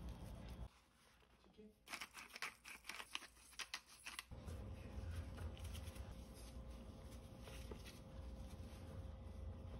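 A hand-twisted spice grinder grinding salt and pepper, a couple of seconds of rapid crunching clicks starting about two seconds in. After that, faint soft rustling as gloved hands press chicken breast into the seasoned flour.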